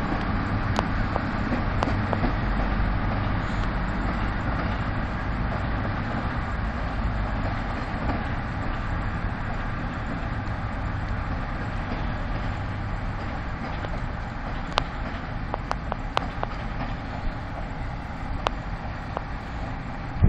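ET22 electric locomotive coupled to an SM42 diesel shunter, running light and pulling away at low speed: a steady low rumble that fades slowly as the locomotives recede, with a few sharp clicks near the end.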